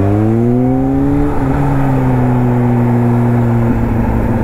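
Kawasaki Z H2's supercharged inline-four engine pulling hard, rising in pitch for about a second, then dropping slightly at a gear change and running steadily at the lower pitch.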